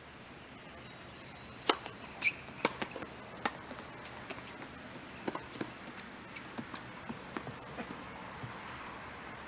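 Tennis balls struck by rackets and bouncing on a hard court: several sharp pops between about one and a half and three and a half seconds in, then fainter ticks, over a steady hiss.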